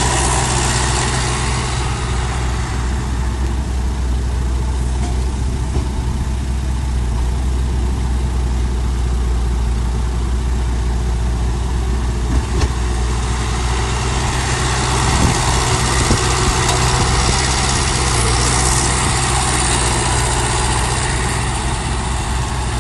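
Heavy diesel engine of earthmoving machinery running steadily, a deep drone, with a brief knock about halfway through.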